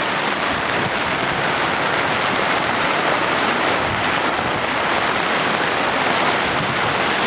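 Heavy rain falling in a steady downpour during a thunderstorm, an even hiss with no let-up.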